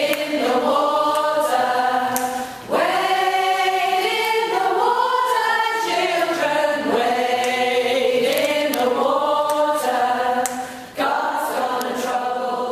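Community choir of mostly women's voices singing a cappella, several voices holding sustained notes together, with the phrases breaking off briefly about two and a half seconds in and again near the end.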